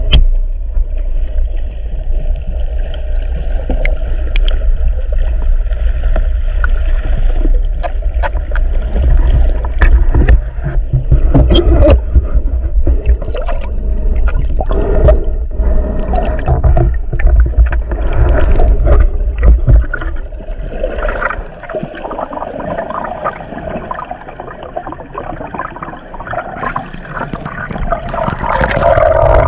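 Underwater ambience picked up through an action camera's housing: muffled water rushing and gurgling with scattered sharp clicks and crackles. A heavy low rumble runs until about two-thirds of the way through, then drops away.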